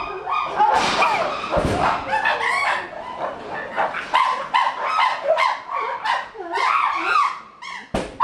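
Chimpanzees calling loudly: a rapid run of short calls, one after another, rising and falling in pitch.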